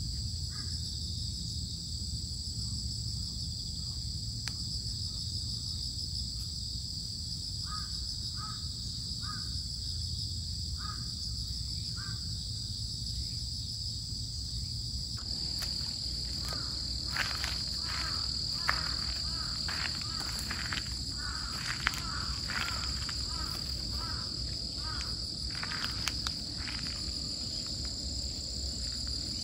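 A steady chorus of insects, a high continuous buzz, over a low outdoor rumble. From about halfway the chorus grows brighter and crows start cawing, with a few sharp clicks in between.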